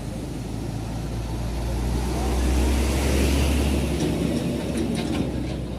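Big bus driving past, its deep engine rumble and road noise swelling to the loudest about two to three seconds in, then easing off.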